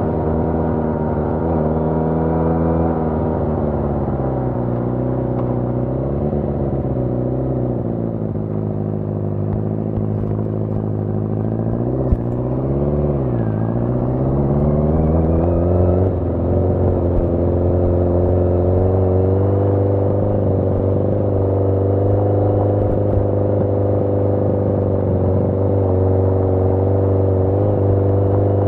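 1981 Yamaha XJ650 Maxim's air-cooled inline-four engine running under way. It winds down over the first several seconds, revs briefly again around the middle, then settles into a steady cruise for the rest.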